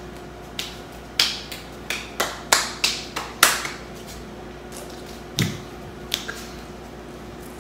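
Sharp finger snaps in a quick, uneven run, about nine in three seconds, then a pause, a snap with a low thump, and two last snaps.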